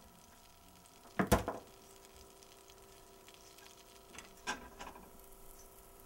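Kitchen utensils handled while a sandwich is put together: one loud sharp clatter about a second in and a lighter clink about four and a half seconds in, over a faint steady hum.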